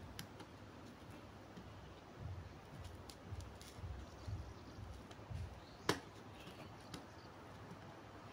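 Faint taps and clicks of tools and a circuit board being handled during soldering, with soft low knocks and one sharper click about six seconds in.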